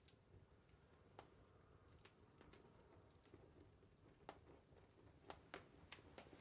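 Faint wood fire crackling, with irregular sharp pops and snaps every half second to a second over a low steady hum.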